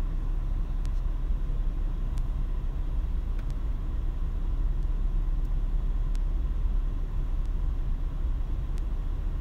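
Steady low rumble of a switched-on 2005 Toyota Prius heard from inside the car, with a few faint ticks scattered through.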